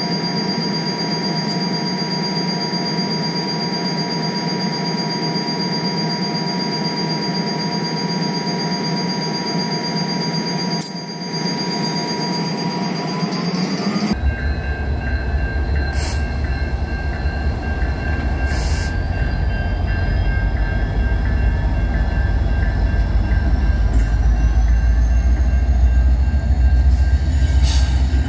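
CN diesel-electric freight locomotives moving over a road crossing: a steady engine drone with a few high whining tones. About halfway it changes suddenly to a deep rumble that grows louder as the units pass.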